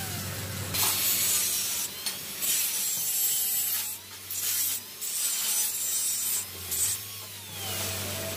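Handheld electric angle grinder grinding down the welded joints of a square-tube steel grill, in several passes of a second or so each. Between passes the motor's whine keeps running, its pitch dipping under load and picking back up.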